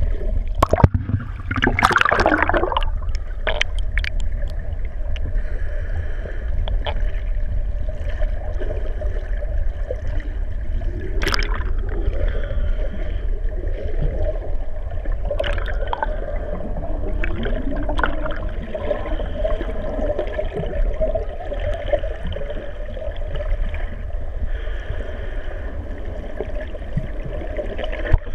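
Underwater sound through a camera's waterproof housing: a steady low rumble of moving water with a steady hum beneath it, broken by gurgling bubbles and splashes from a snorkeller's kicks at the surface, loudest about two seconds in.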